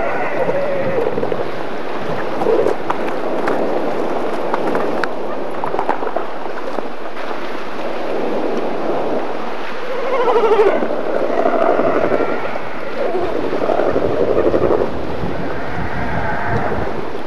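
Steady surf and wind, with animal calls on and off over it; the calls bend in pitch and are loudest in a cluster about ten to fifteen seconds in.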